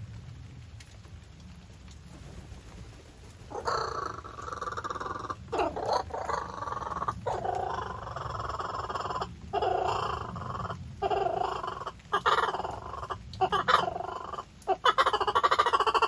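Laughing kookaburra calling: a run of chuckling calls starts about three and a half seconds in, broken by short pauses, and builds into a louder, denser laugh near the end.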